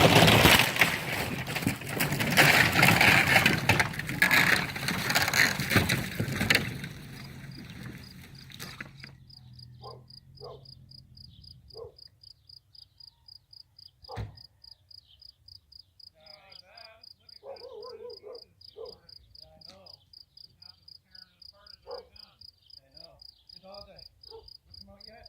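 For about the first seven seconds, a loud rough racket of the old wooden shed being torn down and dragged by a Jeep on tow straps. It then dies away, leaving an insect, most likely a cricket, chirping steadily at about four pulses a second, with faint scattered sounds around it.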